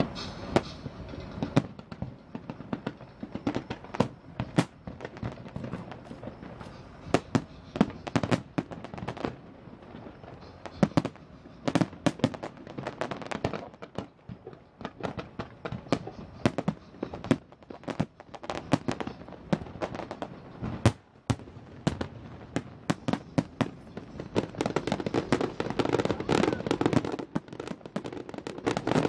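Fireworks display: a long run of sharp bangs from shells bursting, irregularly spaced, sometimes several in quick succession. The bangs grow denser and louder over the last few seconds.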